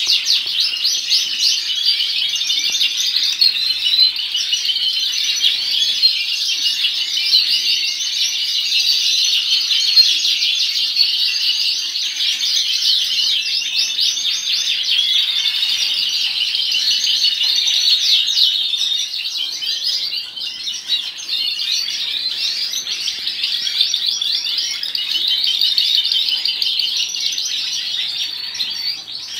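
A room full of caged canaries chirping all at once, a dense, unbroken chorus of high, quick chirps.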